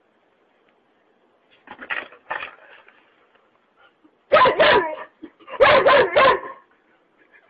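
A dog barking: two softer barks about two seconds in, then two loud runs of quick barks past the middle.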